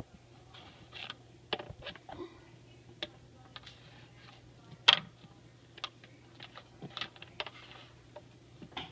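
Irregular clicks and taps of a fork poking and scraping in a narrow gap at a stuck bouncy ball, with one sharper knock about five seconds in.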